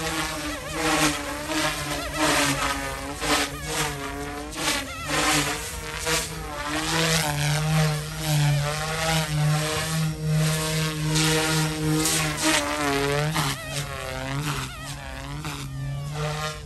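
Small flybarless RC helicopter with brushless direct-drive main and tail motors, flying aerobatic manoeuvres: a steady buzzing whine from the motors and rotor, with repeated whooshes from the blades whose pitch rises and falls every second or so.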